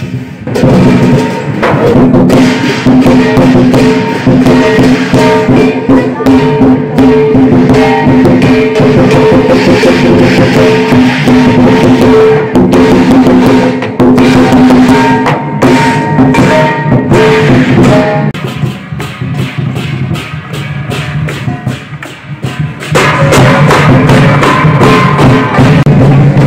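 Chinese lion dance percussion, a big drum with clashing cymbals and gong, beating loud and fast with ringing tones held over it. It eases off for a few seconds about two-thirds of the way through, then comes back at full strength.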